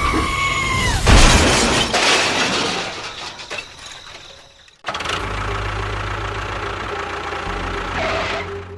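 A short falling two-tone note, then a loud crash that fades out over about three seconds; after an abrupt cut, a steady low engine-like rumble.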